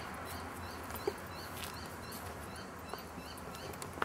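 A small creature chirping over and over, about three short chirps a second, with a few soft knocks.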